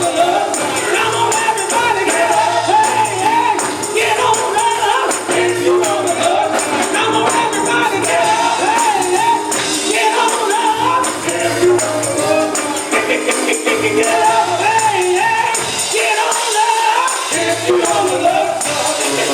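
Gospel song with a choir singing and a tambourine shaking along to the beat, over low bass notes.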